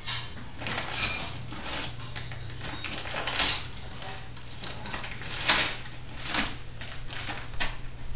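Brown paper bag crackling and tearing as a Bernese Mountain Dog rips it apart with its mouth. The crackles come in irregular bursts, and the loudest is about five and a half seconds in.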